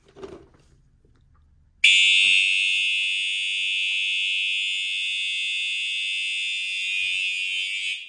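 Fire alarm horn on an older Cerberus Pyrotronics system, sounding during a system test. It comes on abruptly about two seconds in, holds a steady shrill tone without pulsing, and cuts off suddenly at the end.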